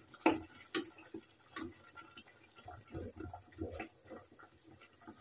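Cooking utensils knocking and clicking on cookware: a wooden spatula stirring and tapping in a frying pan, the sharpest click just after the start, then a cluster of knocks as a metal ladle goes into a stainless steel pot.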